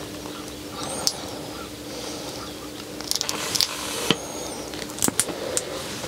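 Quiet handling of adhesive pads and small magnets: light rustling with faint high squeaks, then a few sharp clicks toward the end.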